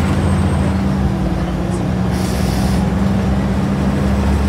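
Inside a Scania N94UD Omnidekka double-decker bus: the diesel engine drones steadily and low, with a short high hiss about two seconds in.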